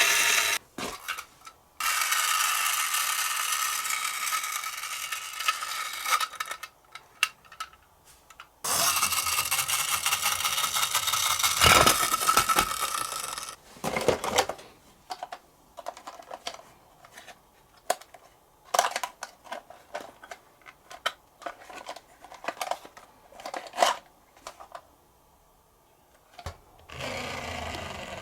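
Toy police minicar running on a slope: a steady mechanical whir twice for several seconds, then a long run of small sharp clicks and clacks of the toy knocking and rolling on the track, and the whir again near the end.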